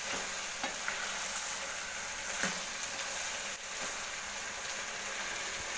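Cubed brinjal with tomato and onion sizzling steadily in oil in a steel pan while being sautéed, with a few faint scrapes of a perforated steel ladle stirring it.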